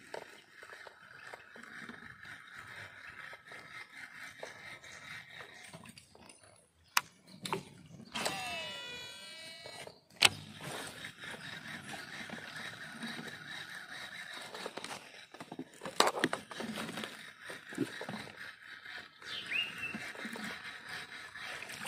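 Baitcasting with a Shimano DC reel: a cast about eight seconds in, with the reel's electronic brake whine gliding in pitch, amid sharp clicks and a steady high hum.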